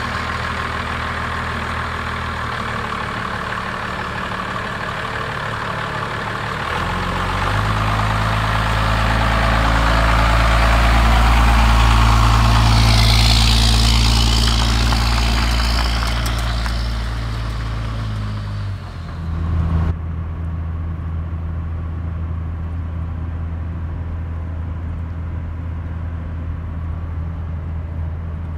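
Dodge Ram's 5.9 Cummins turbo-diesel idling, then pulling away with a car on a trailer, growing louder from about seven seconds in with a brief rush of higher noise as it passes. About twenty seconds in it changes abruptly to the steady drone of the same diesel heard from inside the cab, cruising at highway speed.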